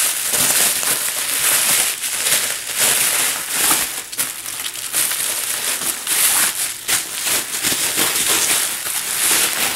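Plastic bubble wrap being handled and peeled off a vinyl record album by hand: a continuous crinkling and rustling with irregular louder surges.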